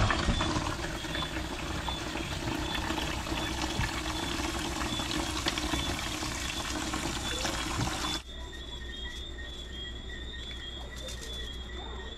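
Kitchen tap running into a bowl of lobster meat in a stainless steel sink while hands rinse the meat in the water. The water sound cuts off suddenly about eight seconds in.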